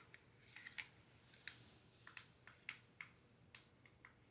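Faint, uneven light clicks of small plastic parts, about two a second, as a mini RC car and its remote are handled.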